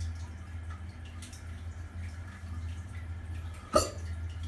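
A single sharp hiccup from a man, sudden and short, late in the stretch, over a steady low hum.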